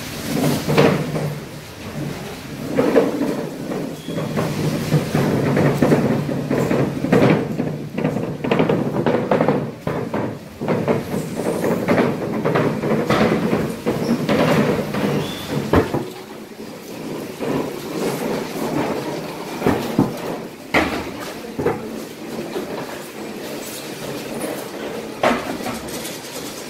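Fish market ambience: a low, steady background rumble of activity with frequent scattered knocks and clatter; the rumble drops away about 16 seconds in, leaving sharper knocks.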